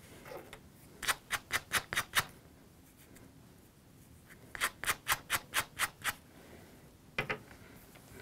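A comb raked quickly through a bunch of craft fur, combing out the soft underfur: two runs of six or seven short, sharp strokes at about five a second, with two more strokes near the end.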